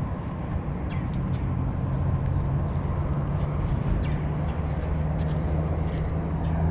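An engine idling steadily, a low even hum, with a few faint clicks over it.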